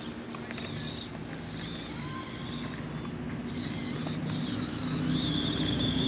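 A steady motor hum that grows louder over the last two seconds or so, with birds chirping high above it.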